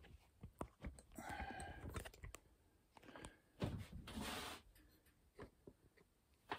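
Scattered light clicks and knocks of objects being handled close by, with a short scrape about a second in and a brief rustle around four seconds in.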